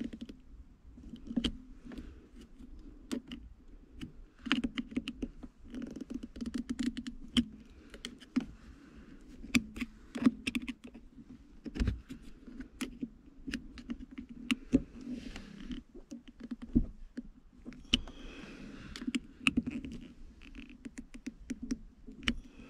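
Flathead screwdriver prying and twisting at a small metal crimp clamp on a gear shift knob: many irregular metallic clicks and short scrapes as the tip slips and catches on the clamp.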